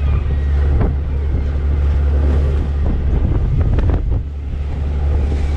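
Wind buffeting the microphone over the steady low rumble of a fishing boat at sea, with a few short scrapes and knocks from work on deck.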